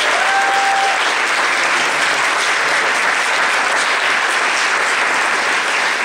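Audience applauding steadily, with one brief steady high note near the start.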